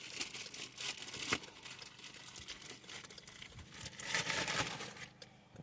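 Rustling and crinkling of a bag and its contents being handled, with scattered light clicks, one sharper about a second in, and a louder stretch of rustling near the end.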